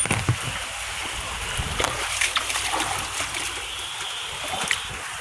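Water splashing and splattering in floodwater, a steady wash of water noise with scattered short knocks and clicks.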